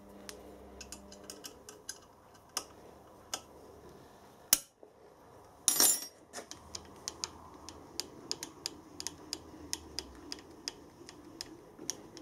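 Light metal clicks and taps from handling a spanner and a dial indicator on its magnetic base on a steel bench, with a sharp click about four and a half seconds in and a brief metal clatter about six seconds in. After that comes a run of quick light ticks, about three a second.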